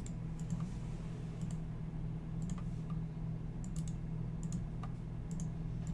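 Scattered light clicks from a computer mouse and keyboard, a few at a time, over a steady low hum.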